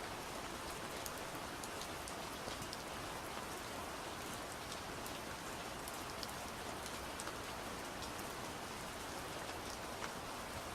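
Steady gentle rain falling, with many small drops ticking on surfaces.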